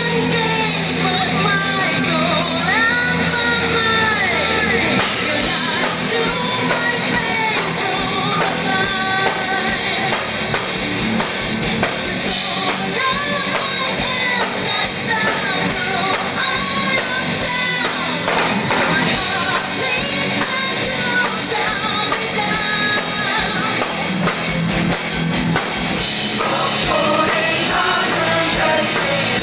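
Live rock band in concert: a woman singing lead over drums and electric guitars, loud, as heard from the audience.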